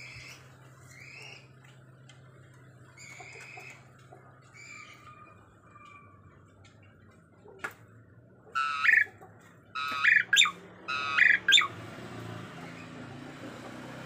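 Caged pied starling calling: several short, fainter whistled notes, then three loud harsh squawks in the second half.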